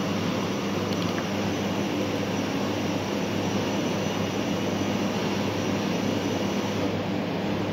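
Steady rushing air noise of ventilation fans with a low hum under it. A faint high whine sits over it and stops near the end.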